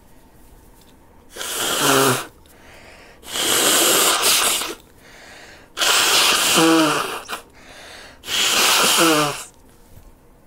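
A person with a stuffy, runny nose from a cold blowing her nose hard four times. Each blow lasts about a second and ends in a falling honk, with quieter breaths drawn in between.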